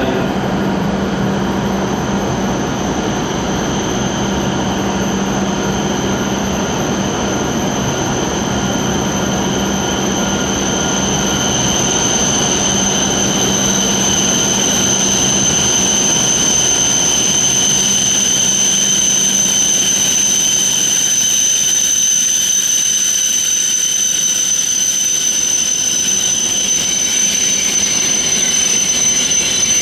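W7-series Shinkansen trainset running slowly into a station platform: rolling and running noise with a steady high-pitched whine, and a low hum that fades about two-thirds of the way through.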